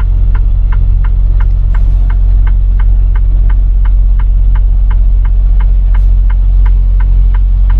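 Semi truck's diesel engine idling with a low steady rumble inside the cab, while the turn signal ticks evenly, about three clicks a second.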